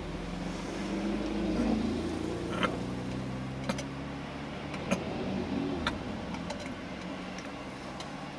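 Road vehicles, a pickup truck, a van and a car, driving slowly past one after another, their engines and tyres swelling as each one passes. A few sharp clicks are heard along the way.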